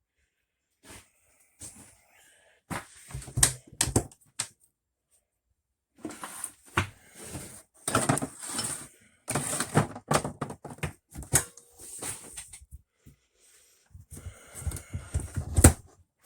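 Irregular knocks, bumps and rattling inside an old camper trailer as things are moved about and handled, coming in several bursts with the loudest knock near the end.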